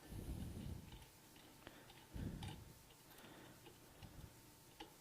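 Faint handling sounds from the pump parts on the bench: two low muffled bumps and a few light ticks scattered through the quiet.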